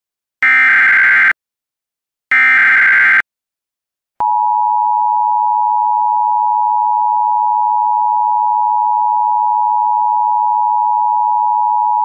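Emergency Alert System SAME header: two short, shrill bursts of data tones about two seconds apart, the second and third of the three header bursts encoding a civil-authority Fire Warning. About a second after the last burst comes the EAS two-tone attention signal (853 and 960 Hz), held steady for about eight seconds.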